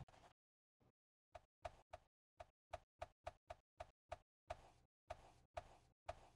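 Faint strokes of a flat bristle brush spreading tinted acrylic gesso across a panel, each stroke starting sharply and fading. After a short pause near the start they come about two to three a second.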